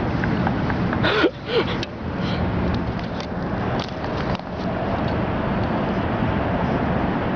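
Steady outdoor background rumble. About a second in, a short burst of rustling noise and a brief cry cut through it.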